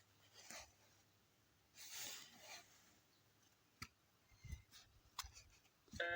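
Near silence with a few faint soft rustles and scattered faint clicks; music with steady notes starts right at the end.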